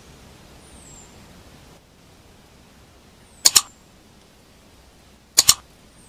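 Two computer-mouse click sound effects, each a quick double click (press and release), about two seconds apart, over faint steady background hiss.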